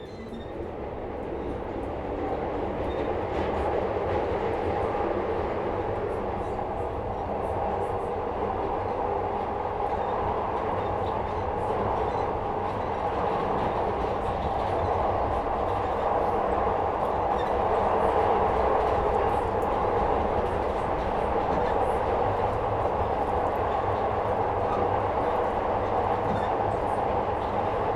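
Interior of a 2nd generation Metro-Cammell Glasgow Subway car under way: a steady rolling roar of wheels and running gear. It grows louder over the first few seconds, then holds, with faint clicks scattered through it.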